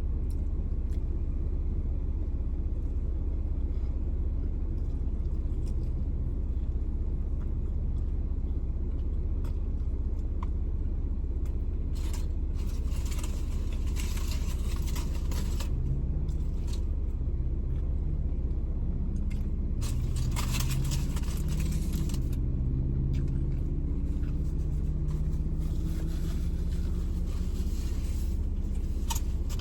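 Steady low rumble of a vehicle's engine running, heard from inside the cabin, its tone slowly rising in the second half. Two short bursts of rustling hiss stand out, about halfway through and again a few seconds later.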